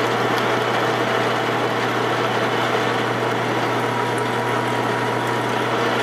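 Metal lathe running at about 135 RPM on power feed, a hole saw in the chuck slowly cutting a cope into DOM steel tubing. It is a steady motor hum under an even grinding hiss, with no chatter, and a faint thin whine comes in during the second half.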